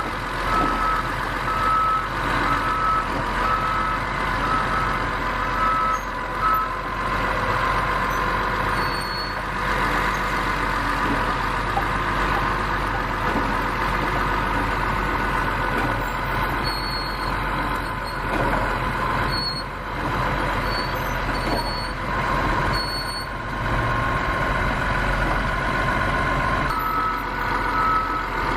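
Caterpillar D6R bulldozer's diesel engine running steadily, with its reversing alarm beeping repeatedly for the first several seconds and again near the end as the machine backs up. There are short, faint high squeaks in the middle.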